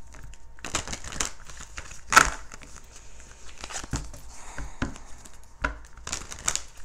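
A deck of oracle cards being shuffled by hand: a run of quick, irregular papery snaps and slides, with one sharper, louder snap about two seconds in.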